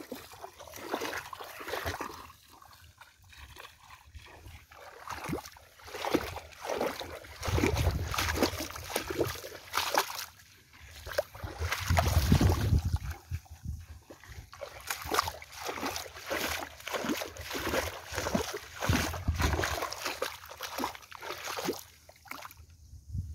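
Footsteps wading through shallow water, splashing and sloshing with each step, with a few heavier low rumbles along the way. The splashing stops about a second before the end.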